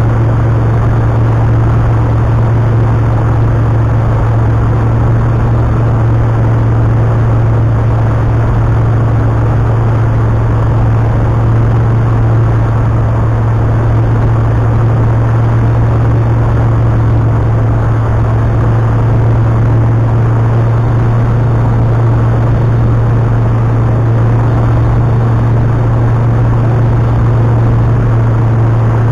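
Tecnam Astore's Rotax 912 flat-four engine and propeller heard from inside the cockpit on final approach: a loud, steady low drone with no change in pitch.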